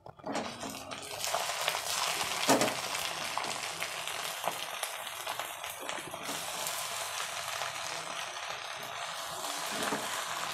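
Pieces of boal catfish and brinjal sizzling in oil in a nonstick pan, a steady frying hiss, while a wooden spatula stirs them with small scrapes and taps against the pan; one sharper knock about two and a half seconds in.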